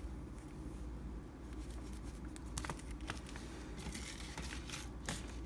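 Packaged groceries being handled and set into a container: light rustling of packaging with scattered small clicks and taps, a few in quick clusters, over a low steady hum.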